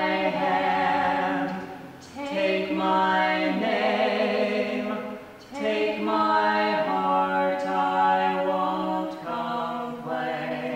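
A small group of voices singing in harmony without accompaniment, holding long notes in phrases a few seconds long with short breaths between them.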